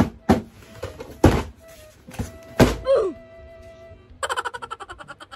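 Background music with a few sharp thunks in the first three seconds, followed near the end by a rapid stuttering run of pitched pulses.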